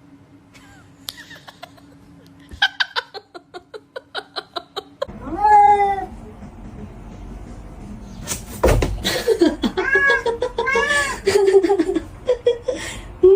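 Cats meowing: a loud, long call that rises and falls about five seconds in, then several more arched meows in the second half. Before them comes a quick run of short repeated sounds, about four a second, and there is a loud noisy burst shortly before the later meows.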